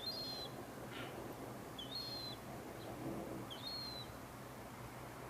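A bird repeating a short, high whistled call about every two seconds, each call quickly rising and then holding its pitch, over a steady low background hum.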